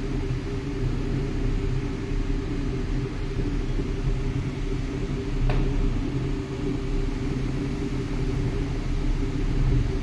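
Steady low rumble of a car's engine and road noise heard from inside the moving vehicle, with one faint click about halfway through.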